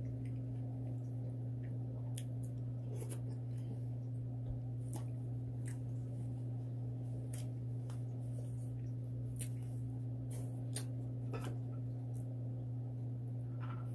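A steady low hum, with faint scattered clicks and soft wet mouth sounds from chewing and eating.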